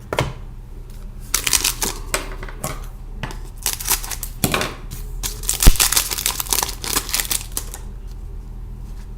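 Trading cards being handled and flipped through: clusters of quick flicks and rustles, with one sharp tap a little past halfway.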